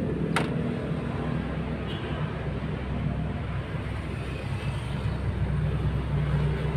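A steady low mechanical hum, with a single sharp click about half a second in.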